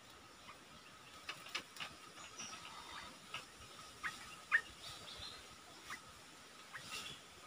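Sparse, faint short chirps from bulbuls, the clearest two about four seconds in, over a faint steady high-pitched whine.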